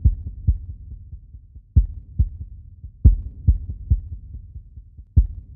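Heartbeat sound effect: low, muffled thumps in short runs of two to four beats with brief pauses between them, over a faint low rumble.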